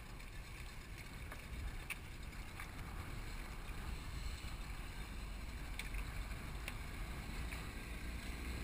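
Steady low wind rumble on the microphone over a small boat drifting on open sea, with a few faint scattered ticks.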